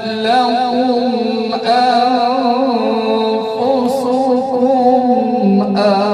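A man's voice reciting the Quran in melodic tilawat style, holding long notes with a wavering, ornamented pitch.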